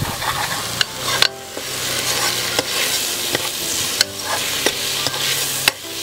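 Capsicum and onions sizzling in hot oil in a pan as they are stir-fried, with a steady frying hiss and repeated sharp clicks and scrapes of the stirring utensil against the pan.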